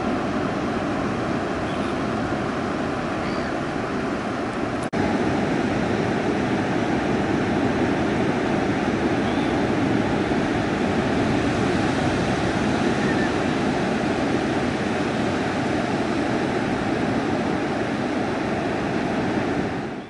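Ocean surf breaking and washing up a sandy beach, a steady rush of waves, with a brief dropout about five seconds in.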